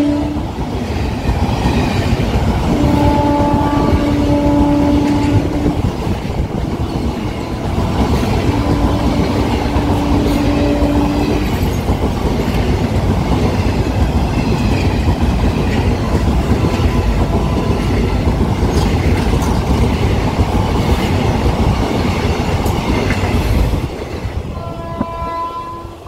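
Passenger train coaches running past at speed, wheels clattering on the rails, while the train's horn sounds two long blasts of about three seconds each in the first half. The rush of the coaches drops off sharply about two seconds before the end as the last coach goes by.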